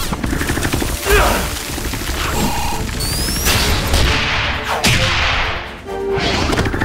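Cartoon fight sound effects: a series of hard hits and crashes, with a rising whoosh a few seconds in, over action background music.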